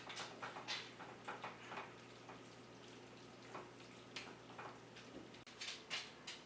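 A cooking utensil clicking and scraping irregularly against a pan as a venison and noodle stir fry is stirred, over a faint sizzle, with a cluster of clicks near the end.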